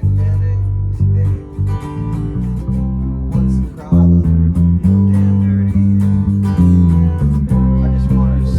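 Live band playing: guitars strummed over a bass guitar whose low notes step from one pitch to the next.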